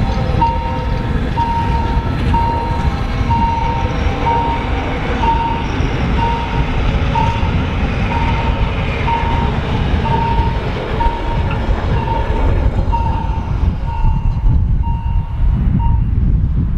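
Red Rhaetian Railway metre-gauge carriages passing close by, a dense low rumble of wheels on rail. A single-pitched beep repeats about once a second and stops just before the end.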